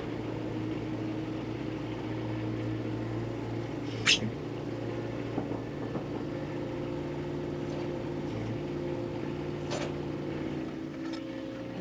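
An engine running steadily at a constant speed, with a sharp knock about four seconds in and a lighter one near ten seconds.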